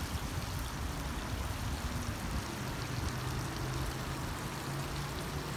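Fountain jets spraying into a shallow ornamental pool: a steady hiss and splash of water.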